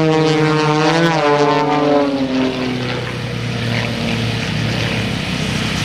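Propeller engines of two aerobatic monoplanes, an Extra 300S and an MX-2, flying in formation. The engine note rises briefly about a second in, then falls in pitch and fades, leaving a lower, steadier drone.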